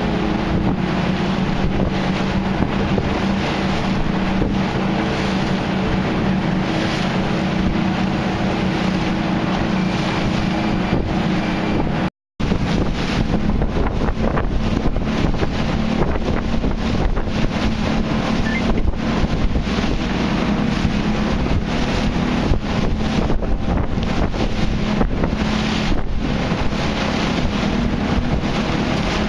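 A motorboat's engine runs steadily, with a low hum, over rushing water and wind buffeting the microphone. The sound cuts out for an instant about twelve seconds in.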